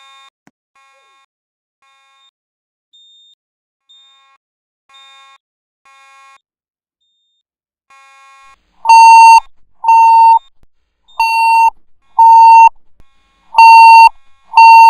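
Fire alarm voice-evacuation system sounding its alert tone between spoken evacuation messages. Faint, evenly repeated beeps come first; about nine seconds in, loud steady-pitched beeps begin, each about half a second long, roughly once a second.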